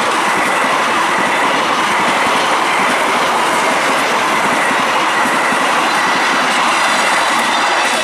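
Passenger train coaches running past at speed close by: a steady, loud rush of steel wheels on the rails.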